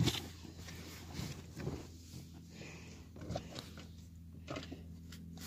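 Low steady hum inside a car, with faint rustling from a phone being handled close up.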